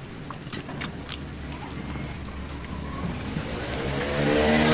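A motor vehicle's engine runs nearby, growing louder and rising slightly in pitch over the last second or so. A few faint clicks and scrapes come early on, as a knife is worked into a giant sunfish's thick skin.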